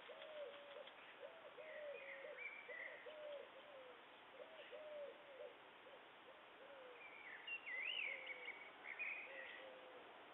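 A dove cooing in repeated phrases of several low notes, fading toward the end, with a few higher chirps from small birds about two seconds in and again near the end.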